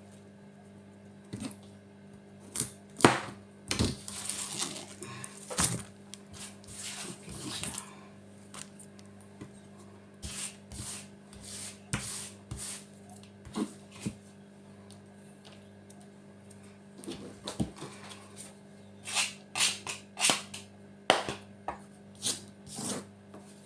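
A kitchen knife tapping and knocking irregularly on a plastic cutting board as vegetables are trimmed, in scattered sharp clicks, over a steady low hum.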